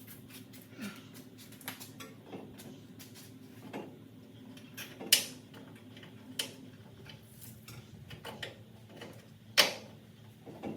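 Scattered light metallic clicks and clinks of hand tools and parts being handled during shop work, with two sharp louder knocks about five seconds in and again near the end.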